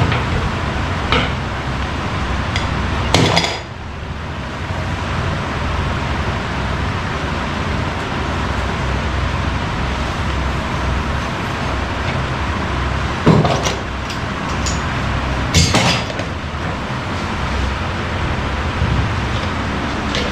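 Metal tools and parts clinking and knocking now and then, with a few sharp knocks, the loudest about three seconds in and about fifteen seconds in, over a steady background noise.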